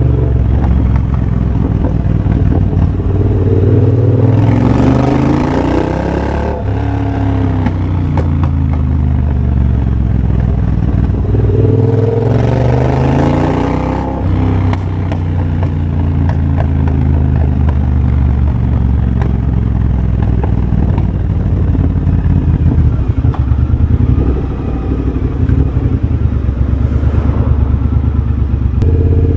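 2023 Triumph Bobber's 1200 cc parallel-twin engine, breathing through a de-catted TEC X-pipe and a Motone shorty exhaust, on the move. The revs climb and drop back twice in the first half, like pulls up through the gears, then hold steady.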